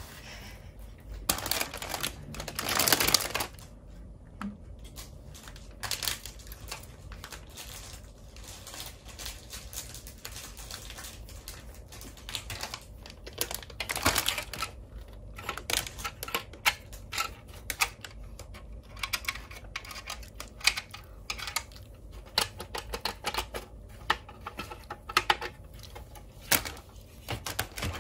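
Clear plastic bags of plastic toy parts being handled and moved about, crinkling and crackling in irregular bursts, with the longest, loudest rustle about two to three seconds in.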